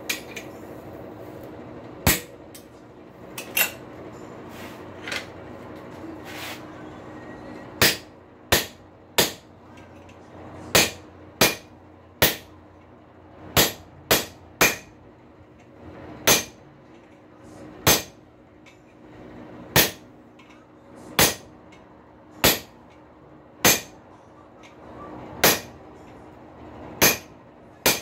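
Hand hammer striking a rail spike on an anvil during forging: sharp, ringing blows, a few scattered at first, then a steady run of about one a second from around eight seconds in. A steady hum runs underneath.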